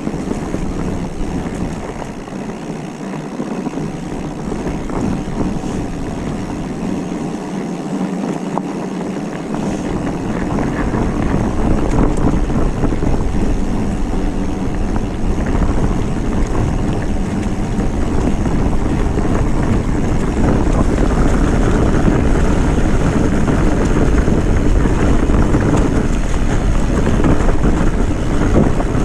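Steady wind noise on the microphone with a rumble of tyres rolling over the ground while the mountain bike is ridden. The rumble gets louder about ten seconds in.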